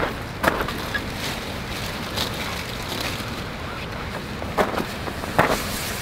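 Footsteps on gravel: a handful of separate crunches spaced about a second apart, over a steady background hiss.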